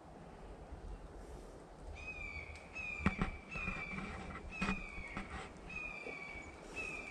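A bird calling repeatedly: about six drawn-out calls, each falling slightly in pitch, with two sharp knocks about three and four and a half seconds in.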